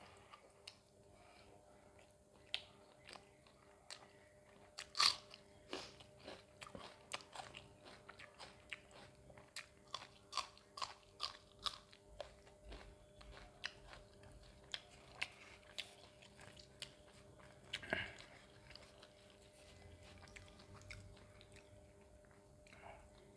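Close-miked eating: a person biting and chewing through crisp food, a quick run of sharp crunches as a fresh green chilli and roti are bitten off and chewed. The loudest crunch comes about five seconds in, another strong one around eighteen seconds, and the chewing thins out near the end.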